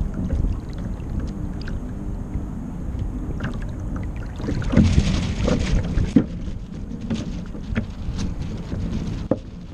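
Water slapping and rushing against the hull of a Kyosho Seawind RC sailboat, heard close up from its deck, with many short knocks from small waves. There is a louder hissing splash of spray about five seconds in.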